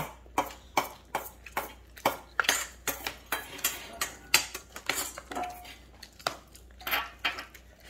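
A metal spoon clinking and scraping against a bowl as a child scoops up mixed rice, with short, sharp taps about two to three times a second.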